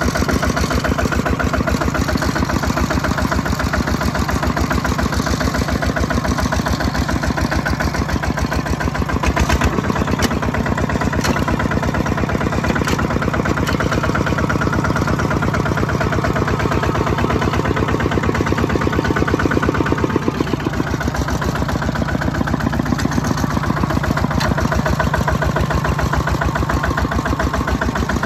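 Single-cylinder diesel engine of a Kubota RT140-type two-wheel walking tractor running steadily with a rapid, even chugging beat as it drives through wet rice-field mud. The engine note dips briefly about two-thirds through, and a few light clanks sound near the middle.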